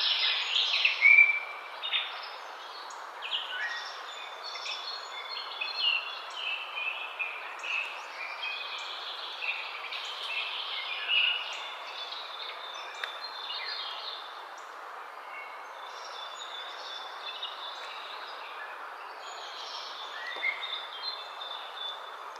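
Several small birds chirping and calling over a steady background hiss, the calls loudest and densest in the first couple of seconds and then scattered and fainter.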